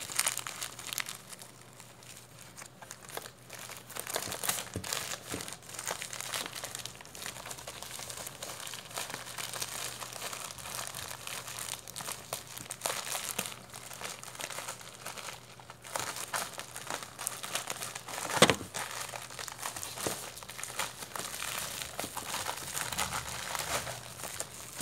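White plastic mailer packaging crinkling and rustling as hands work it open, with one sharper, louder crackle about three quarters of the way through.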